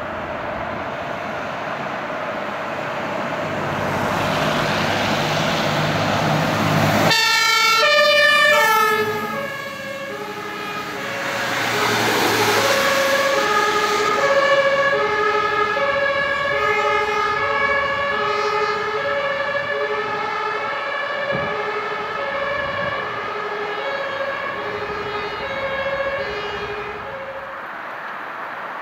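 Fire engine passing on an emergency run: truck engine and tyre noise build over the first few seconds. Then, about seven seconds in, a German two-tone siren (Martinshorn) starts, stepping steadily back and forth between a high and a low note, and grows fainter toward the end.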